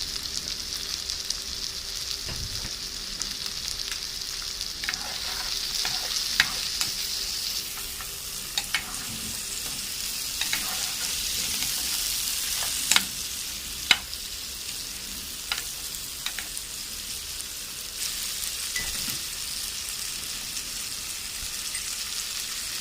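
Chopped vegetables and spice sizzling in hot oil and butter in a frying pan, with a steady frying hiss. A spoon stirring them knocks against the pan now and then, sharpest a little past the middle.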